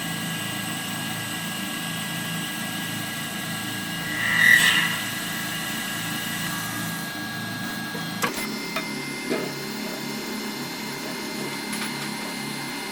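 Workshop machinery running with a steady hum and several high whining tones. About four and a half seconds in there is a brief louder squeal, and just after eight seconds the tone changes with a sharp click and a few small ticks.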